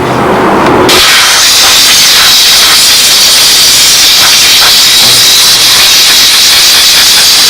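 Steam cleaner nozzle jetting steam onto a dirty part, cutting in abruptly about a second in as a loud, steady hiss.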